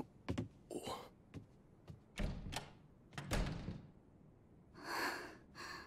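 Quiet footsteps and a door being opened and closed: a string of soft clicks and knocks, with two heavier thuds about two and three seconds in.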